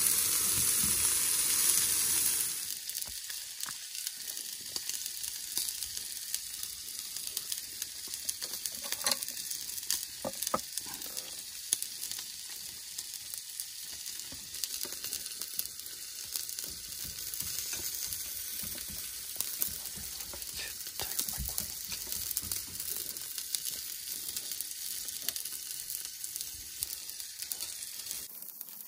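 Food sizzling in a hot pan, with scattered small pops. Louder for about the first two seconds, then a steady, quieter sizzle.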